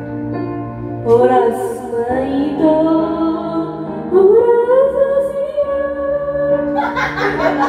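A woman singing into a karaoke microphone over backing music. About four seconds in she slides up into one long held note.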